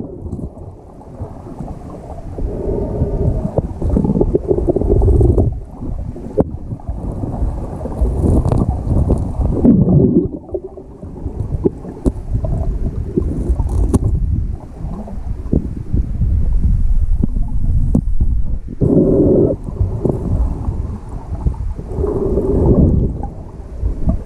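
Muffled underwater noise picked up by a submerged camera: deep, uneven rumbling of water moving around it as the snorkeller swims and reaches for the bottom, with a few sharp knocks.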